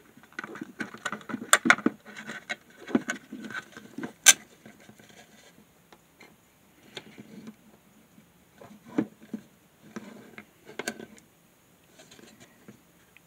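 Plastic housing and circuit board of a plug-in power meter being handled and pried apart: scattered clicks, taps and scrapes. They come thick in the first four seconds, with one sharp click a little after four seconds, then thin out.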